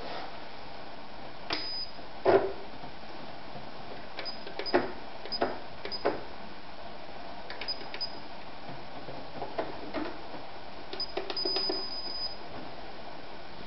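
A Singer Rumina 3000 computerised sewing machine being set up, its motor not running. There are short high electronic beeps as its panel buttons are pressed, mixed with scattered plastic clicks and knocks. A cluster of clicks comes near the end as the top cover is lifted open.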